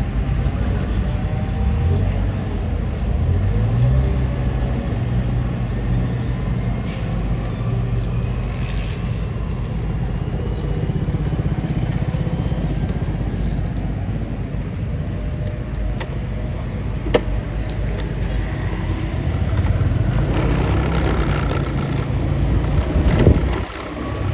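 Bulldozer's diesel engine running, its pitch stepping up and down as it revs while working, with a sharp click and a short knock near the end.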